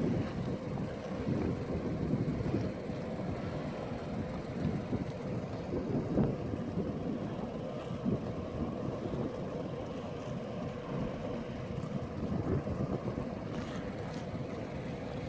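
Outdoor harbour background: a steady low rumble with wind buffeting the phone's microphone, and a faint steady hum underneath.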